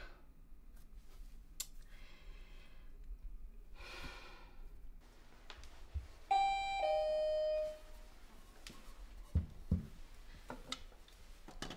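Two-note doorbell chime ringing once, a higher ding falling to a lower dong, about six seconds in, signalling a visitor at the door. Two short thumps follow a few seconds later.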